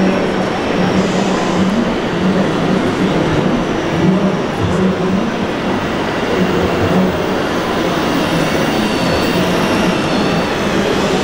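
Steady din of a busy exhibition hall as an RC model Fendt tractor drives past, with a faint high whine rising in the last few seconds as the tractor comes close.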